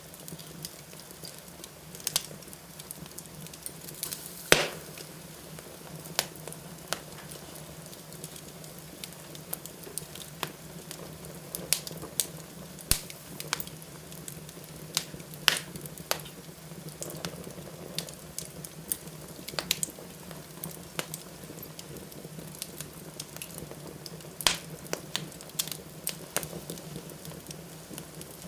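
Wood fire in a fireplace crackling steadily, with irregular sharp pops, the loudest about four and a half seconds in. A faint steady low hum runs underneath.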